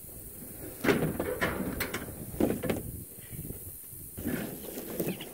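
Ascend H12 kayak being slid off a pickup's tailgate and set down on the ground: a series of dull knocks and scrapes of the plastic hull and motor rig, about half a dozen spread over the few seconds.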